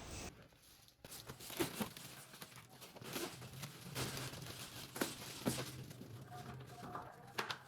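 Faint scattered rustles and light clicks of handling, over a faint low hum.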